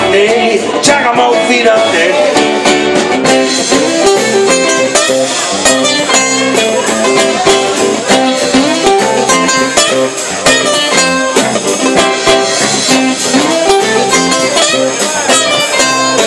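Live rock band playing loudly: guitar lines over a drum kit with frequent cymbal and drum hits.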